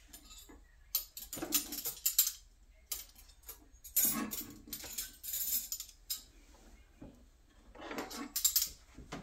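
Rummaging in a drawer: small metal table decorations clinking and clattering together, with tissue paper rustling, in three bursts of handling.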